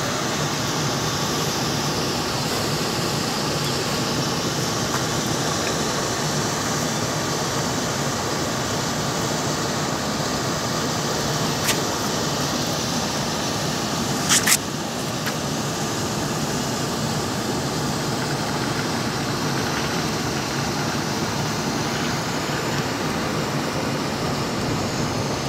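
Steady hiss of outdoor background noise, with one sharp click about 12 seconds in and a quick double click about 14 and a half seconds in.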